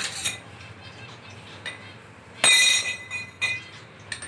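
Metal parts clinking against a motorcycle's front fork tube, with one louder ringing metallic clang about two and a half seconds in and a few lighter clicks around it.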